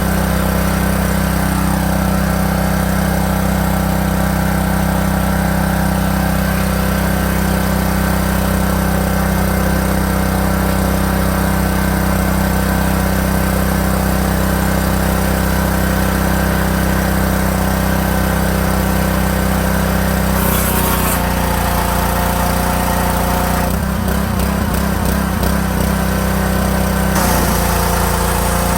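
Champion 3200 psi pressure washer's Honda GC190 single-cylinder engine, with its internal timing belt, running steadily at working speed. About two-thirds of the way in its tone shifts, and near the end a loud rush of spray noise comes in for a few seconds, then drops away.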